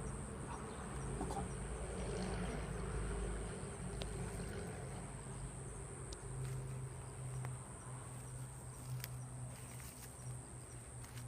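Insects, crickets most likely, singing in a steady high drone, over a faint low rumble with a few small ticks.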